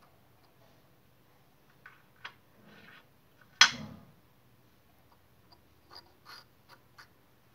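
Light clicks, taps and a brief rub from fingers handling the device close to its microphone, with one much louder knock about three and a half seconds in.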